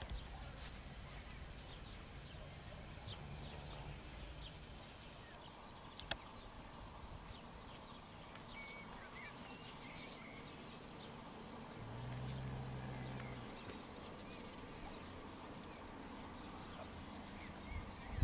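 Faint outdoor ambience with scattered short, high bird chirps. There is a sharp click about six seconds in and a brief low buzz, like an insect flying past, about twelve seconds in.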